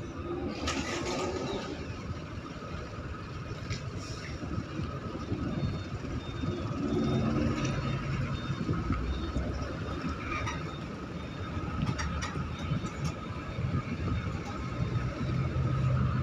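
Low, steady rumble of a container ship's engines as the ship gets under way close by, with a faint steady hum above it.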